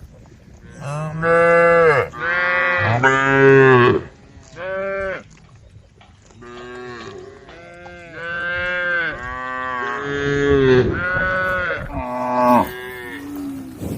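Several cows in a herd mooing, one long call after another and often overlapping, as the cows call to the herd.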